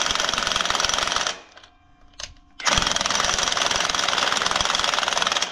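Impact wrench hammering rapidly on a seized, freshly heated spring-trunnion nut, trying to break it loose. It runs in two bursts, with a pause of about a second and a half after the first second or so.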